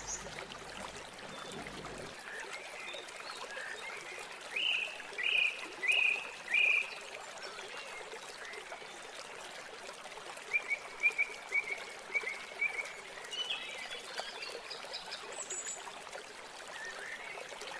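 Soup boiling in a pot, a steady bubbling hiss. Over it come a run of four short, falling high chirps about five seconds in, and a quicker run of short chirps around ten to thirteen seconds in.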